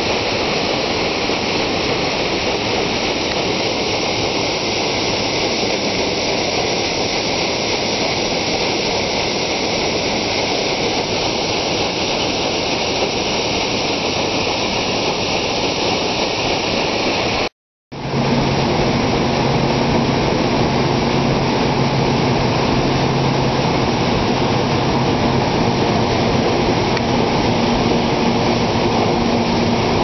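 The sternwheel paddle wheel of the steamboat Natchez churning and splashing through river water, a steady rush. A little over halfway through, after a short break, it gives way to the steady running of the steamboat's engine-room machinery, with a low hum under the noise.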